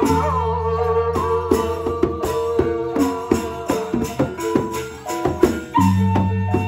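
Gendang beleq ensemble playing a gending: a bamboo suling flute carries a held, gliding melody over large hand-beaten gendang beleq drums and metal cymbal clashes on a steady beat of about two to three strikes a second. About six seconds in, a new high flute note is held.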